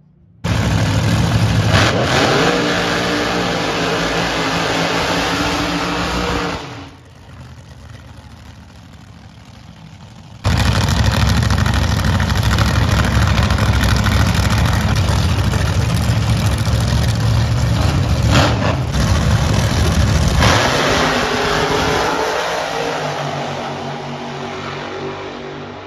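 Supercharged nostalgia drag-racing engines running at full volume, revving and pulling down the strip. About seven seconds in the sound drops to a quieter stretch, then another loud run starts; near the end the engine's pitch falls and it fades as the car pulls away.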